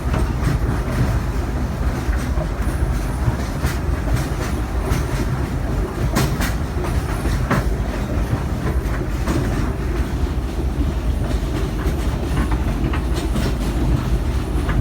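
Steam train's passenger cars rolling along the track, heard from on board: a steady low rumble of wheels on rail, with a few sharp clicks in the middle.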